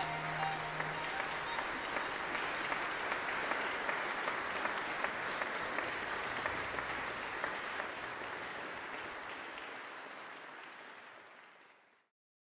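Audience applauding: a dense patter of many hands clapping that slowly fades over the last few seconds, then cuts off.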